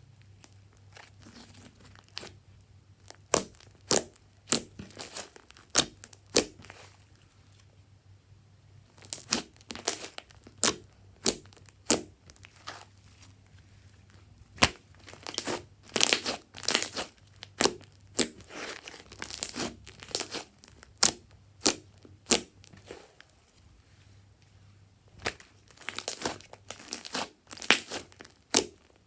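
Slime being squeezed, stretched and poked by hand, giving irregular sticky crackles and pops in clusters, with a short lull about a third of the way in.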